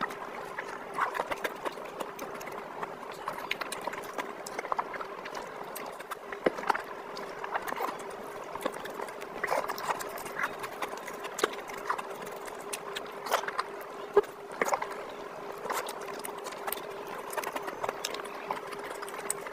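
Close-miked chewing and lip-smacking of curry-soaked meat and rice eaten by hand: an irregular run of wet smacks and mouth clicks.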